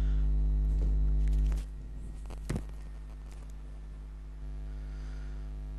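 Steady electrical mains hum, dropping in level about a second and a half in, with one short click about two and a half seconds in.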